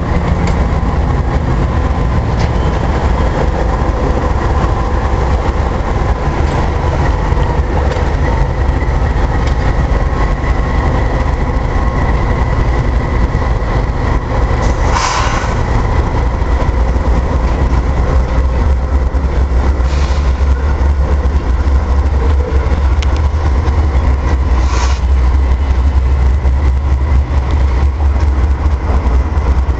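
Canadian Pacific diesel locomotives running as they move slowly through the yard: a steady, heavy engine drone. Brief sharp noises stand out about halfway through and twice more later.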